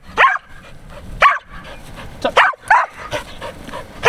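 An Australian Shepherd barking: short, sharp barks about a second apart.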